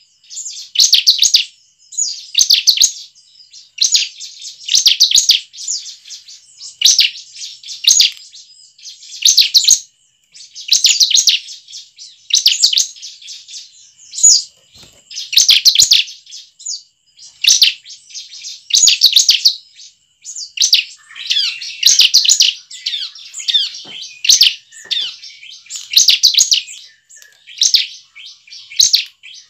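Bar-winged prinia (ciblek) singing: short bursts of rapid, high chirping notes, repeated every one to two seconds.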